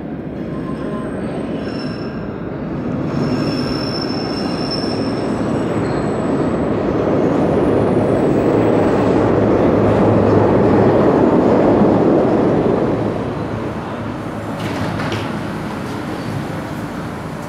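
Subway train of 1980s Kawasaki B-IV cars pulling into an underground station: a rumble of steel wheels on rail that builds to its loudest about ten seconds in, with high thin squeals a few seconds in, then falls off as the train slows to a stop about thirteen seconds in.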